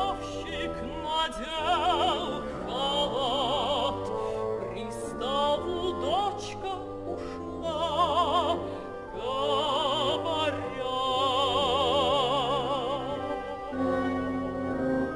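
A female operatic voice sings with wide vibrato over a symphony orchestra. The voice stops about fourteen seconds in, leaving the orchestra holding a sustained chord.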